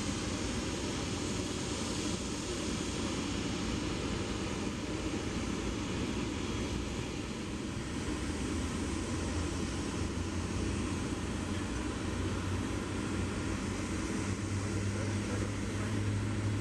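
Airbus A350's Rolls-Royce Trent XWB jet engines running at low power on the ground, a steady rumble and hiss, the low hum swelling a little near the end.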